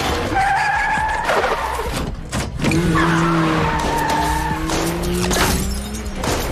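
Film car-chase soundtrack: a van's tyres squealing several times as it skids round a corner, with vehicle noise and dramatic music underneath.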